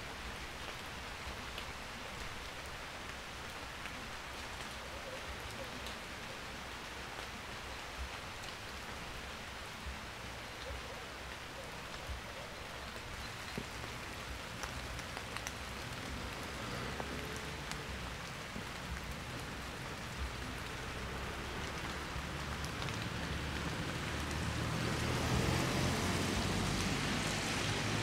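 Steady rain falling, with scattered ticks of single drops. A low rumble grows louder near the end.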